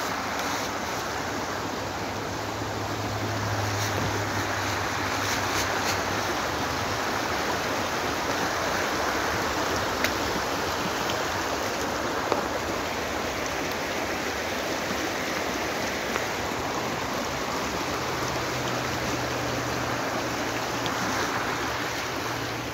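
Steady rush of a fast-flowing river, an even whoosh of water with no pauses.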